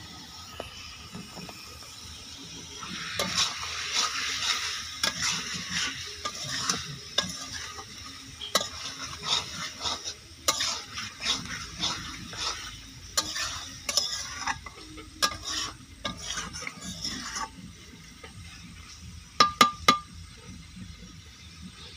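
A metal spatula stirs and scrapes chicken and potatoes in thick masala in a metal kadai, with the sizzle of frying. The stirring starts about 3 s in and stops around 17 s. Near the end come three sharp metal-on-metal clinks, the loudest sounds.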